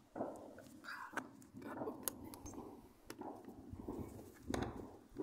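Distant New Year's fireworks: irregular sharp bangs and pops, the loudest about four and a half seconds in.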